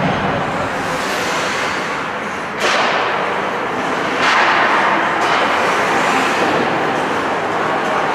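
Ice hockey game sounds in an arena: skates and sticks on the ice under a steady wash of rink noise, with a sharp knock about two and a half seconds in and the noise growing louder from about four seconds in.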